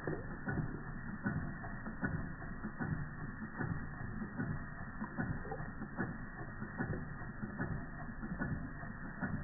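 Georges Carette Model 175 toy twin oscillating-cylinder steam engine running, its rocking cylinders and crank clicking and knocking in a quick, uneven patter.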